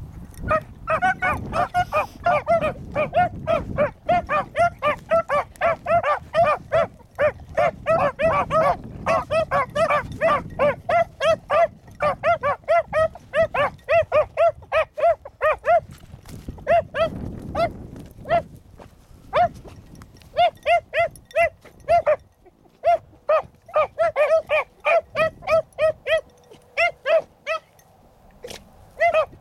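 Two beagle pups baying while trailing a rabbit scent: quick, repeated yelping barks at about three to four a second, in runs broken by short pauses. Wind noise on the microphone.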